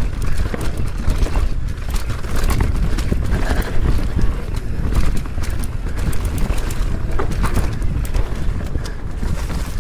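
Mountain bike descending a rough trail at speed: tyres clattering over rocks and dirt and the bike rattling with many small knocks, over a steady rumble of wind on the microphone.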